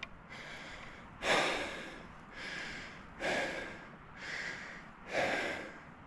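A man breathing heavily, out of breath from running: three louder breaths about two seconds apart, with softer breaths between them.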